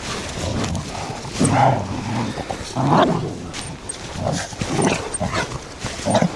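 A dog vocalizing in about five short calls a second or so apart.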